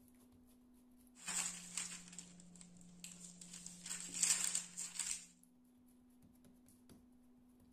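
Parchment baking paper rustling and crinkling under hands as a round of filled dough is pressed flat on it, loudest about a second in and again around four seconds in, then stopping. A faint steady hum underneath.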